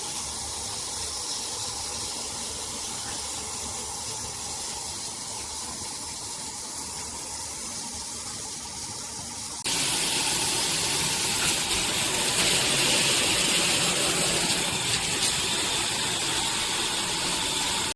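Handheld shower head spraying water, a steady hiss that jumps louder and brighter about ten seconds in.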